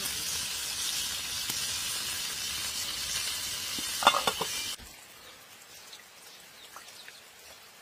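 Oil sizzling steadily as fish fry in a pan over a wood fire, with a quick cluster of knocks about four seconds in. Then the sizzle cuts off suddenly, leaving faint light rain dripping into a puddle.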